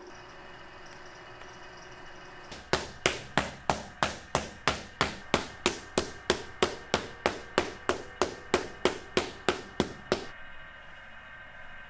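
A potter's wooden paddle beating the clay wall of a large onggi jar: about two dozen sharp strikes at a steady three a second, which stop a couple of seconds before the end.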